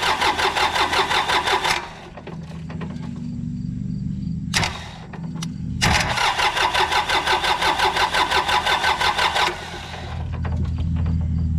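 Yanmar EX3200 tractor's diesel engine cranking on its starter, jumpered at the starter solenoid, in two runs of even, rapid compression beats: one ending about two seconds in and one of nearly four seconds later on, with a sharp click between them. Each run stops without the engine catching, because the engine is not getting fuel.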